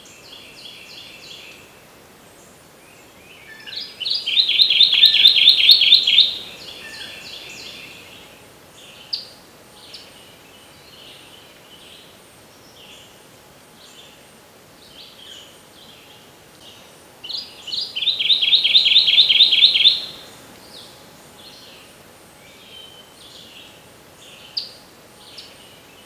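Kentucky warbler singing twice, about thirteen seconds apart. Each song is a loud, fast, rolling run of the same two-note phrase repeated about four times a second for just over two seconds. Fainter calls of other birds fill the gaps.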